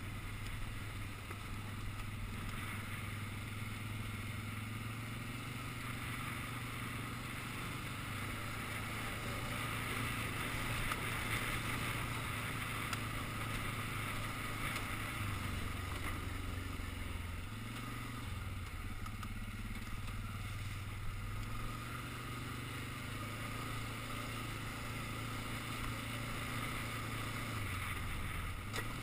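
Quad (ATV) engine running steadily under way over a gravel track, with a low drone whose pitch shifts briefly a few times, around two-thirds in and again near the end, as the throttle changes. Hiss of tyres and wind runs underneath.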